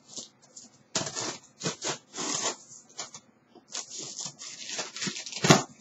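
Packing tape being picked at and ripped off a cardboard box by hand, a run of short, irregular scratchy tearing and rubbing sounds on the cardboard, with a louder sharp sound near the end.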